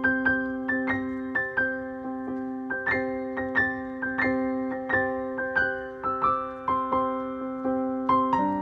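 Background music: a slow piano melody of single struck notes over held chords.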